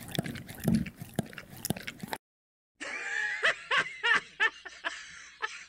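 Cartoon sound effects: wet licking and slurping noises for about two seconds as vomit is licked up. After a short silence comes a man's laugh in quick, repeated bursts.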